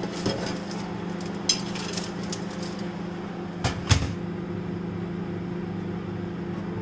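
Panasonic convection microwave oven humming steadily while preheated, with a few light clicks as a baking tray is slid in, then the oven door shut with two sharp knocks about four seconds in.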